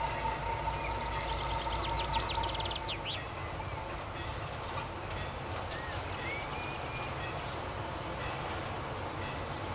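Diesel locomotive engine running steadily at a distance, a low hum, with a steady high whine that fades out about three seconds in. Songbirds chirp over it, with a fast trill about two seconds in.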